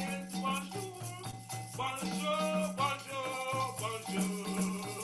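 Upbeat music with a pulsing bass line and a melody, over a shaker rattling in a steady rhythm.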